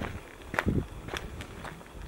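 Footsteps of a person walking at an even pace on a forest trail, a crunching step every half second or so.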